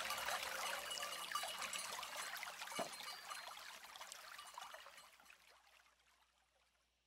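Faint audience applause, many scattered claps, fading away and gone about five seconds in, with one soft low thump near the middle.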